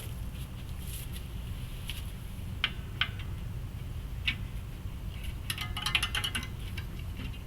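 Sharp metallic clinks of metal parts being handled: single clinks about two and a half, three and four seconds in, then a quick rattle of clinks near six seconds, over a steady low rumble.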